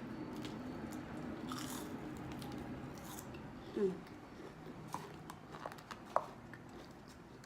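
Close-miked eating: crispy fried food being bitten and chewed, with scattered crisp crunches.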